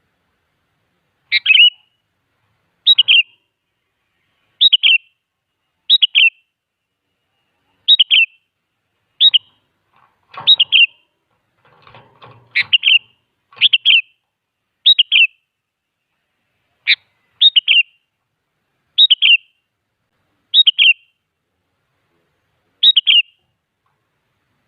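Sooty-headed bulbul calling: a short, bright chirping phrase repeated over and over, about one every second and a half, with silent gaps between. Faint low rustling sounds under a few calls about halfway through.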